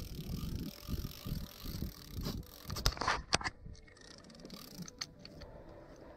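Rumbling handling noise on the angler's camera and mic as he works a fishing line by hand to haul up a hooked bluegill, with a few sharp clicks about three seconds in. It goes quieter after that.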